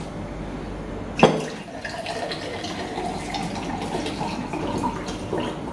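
Water poured from a large plastic jug into a drinking glass, a steady splashing trickle lasting several seconds. A sharp knock about a second in is the loudest sound.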